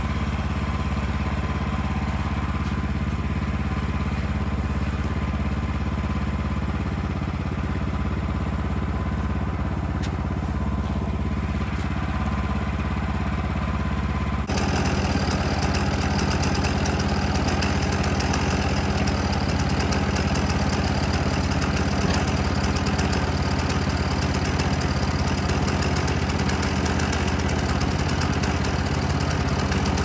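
An engine idling steadily. About halfway through the sound changes abruptly and runs on a little louder.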